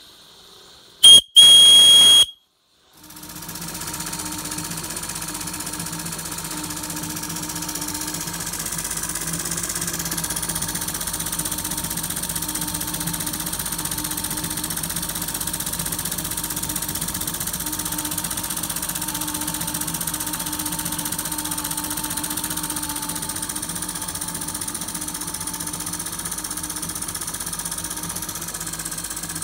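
A short loud whistle about a second in. Then a PM Research No. 3 model steam engine runs steadily on steam, belt-driving a small generator.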